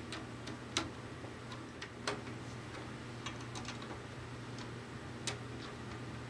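Scattered light metallic clicks and ticks, a dozen or so at uneven intervals, as a quarter-inch bracket key is fitted to and turned on a banjo's tension hook nuts while a new head is tightened. A faint steady hum runs underneath.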